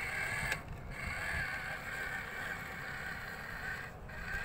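Electric motor and gearbox of a Huina RC dump truck whining steadily as the truck drives over sand, the whine dropping out briefly twice.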